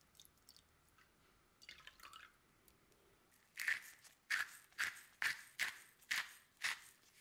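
Knife chopping something crisp on a cutting board: seven sharp strokes, about two a second, after a few light clicks and a short scrape.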